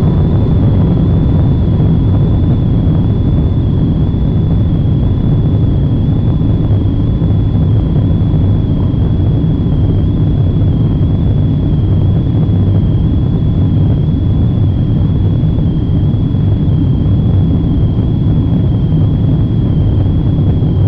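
Cabin noise from a Boeing 777-200ER's Pratt & Whitney PW4090 turbofans at takeoff power just after liftoff and into the climb. It is a loud, steady rumble with a thin, steady high whine above it.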